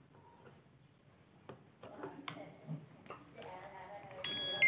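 A few light clicks of handling, then near the end the LG washing machine's control panel starts its electronic power-on beep tune, a loud stepping tone.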